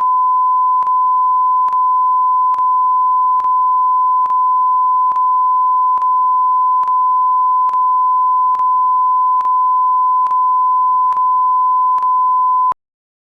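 Steady single-pitch test tone recorded on the end of a FoxVideo VHS tape, with a faint click about once a second; it cuts off suddenly near the end.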